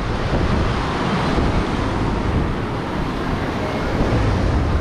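Steady wind rumbling on the microphone over the wash of ocean surf, an even noise heaviest in the low end.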